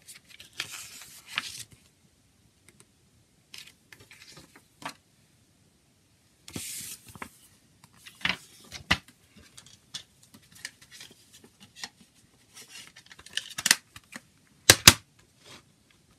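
Paper CD booklet rustling as it is handled, then a string of sharp plastic clicks and knocks from the CD jewel case, the loudest two in quick succession near the end as the case is snapped shut.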